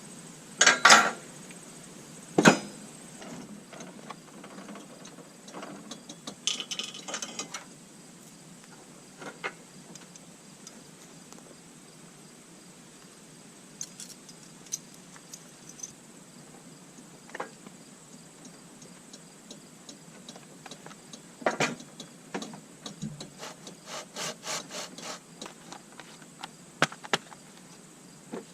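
Tools and wood being handled: scattered sharp knocks and clicks with short stretches of rubbing and scraping. The loudest knocks come about one and two and a half seconds in, and a quick run of clicks and knocks comes near the end.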